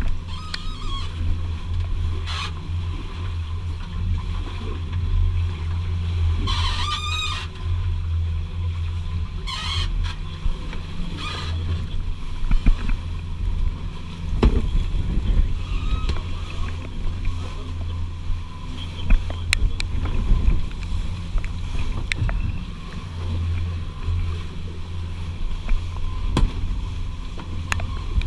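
A sailing catamaran's motor running steadily at low speed, a deep even drone.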